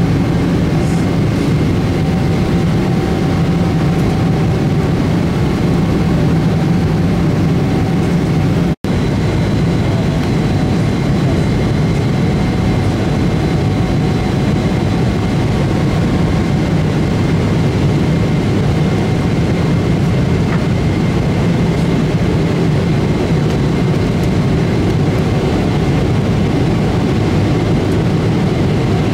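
Jet airliner cabin noise in flight: a steady rumble of engines and airflow with faint steady hums, cutting out for an instant about nine seconds in.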